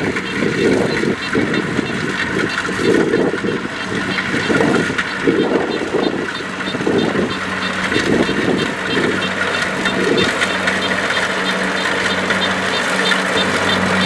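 Kubota DC70 rice combine harvester running as it cuts, its diesel engine giving a steady hum that grows stronger near the end as the machine comes closer. There is uneven low rumbling in the first half and a fast, even ticking of machinery throughout.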